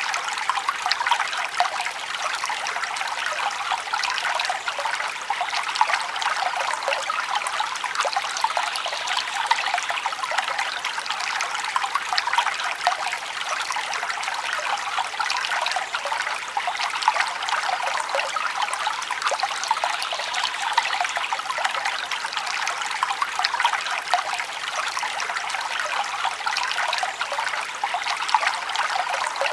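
Forest stream trickling and babbling steadily, a continuous rush made up of many small splashes.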